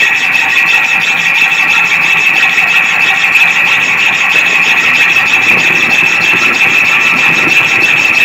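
Hand hacksaw sawing through a metal workpiece clamped in a bench vice, working down into a starting slot nicked beforehand. Fast continuous strokes with a steady, high-pitched ring from the blade.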